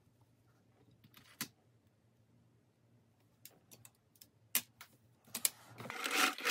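Sewing tools and linen fabric being handled at a sewing machine: a few separate light clicks spaced out over several seconds, then a soft, denser rustle near the end.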